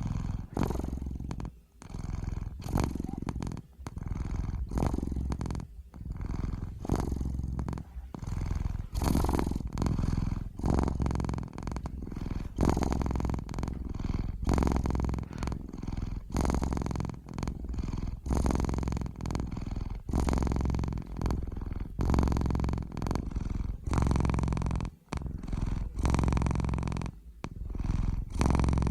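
Domestic cat purring, close up. The purr swells and breaks off in a steady rhythm, with a short pause about every second or two as the cat breathes.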